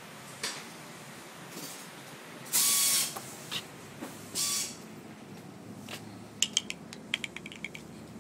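Two short bursts of a shop air tool, a hiss with a whir under it, followed near the end by a quick run of ratchet clicks.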